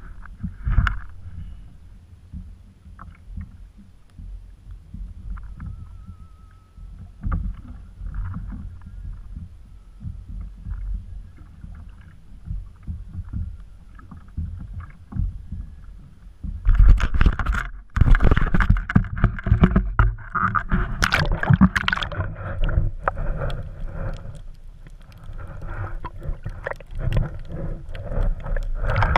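Low rumble of wind and water around a kayak with scattered small knocks. About seventeen seconds in, a loud churning, sloshing water noise begins suddenly as the camera is pushed under the surface.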